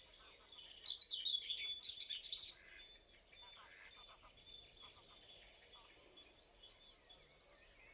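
Small songbird singing a thin, very high-pitched song of rapid repeated notes. It is loud for the first couple of seconds, then goes on more faintly.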